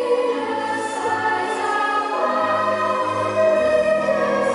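Nighttime castle-show soundtrack: music with a choir singing long held notes.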